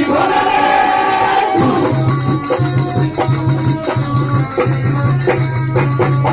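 Harikirtan devotional folk music: a voice singing for about the first second and a half, then the instruments carry on alone with a steady beat of rattling hand percussion.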